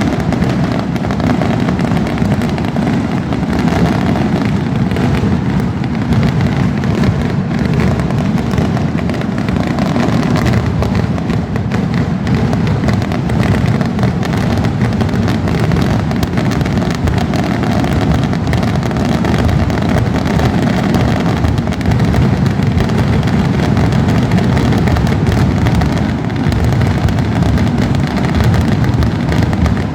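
Non-stop barrage of firework thunder rockets going off overhead, the bangs so dense that they run together into one steady, loud din.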